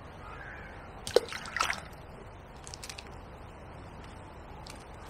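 Hand-thrown balls of groundbait plopping into a slow river: one sharp plop about a second in, then a smaller cluster of splashes half a second later.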